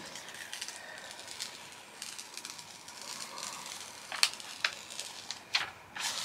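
Paper cover sheet on a diamond painting canvas rustling and crackling as hands slide and smooth it, with a few sharp crinkles, the loudest about four seconds in.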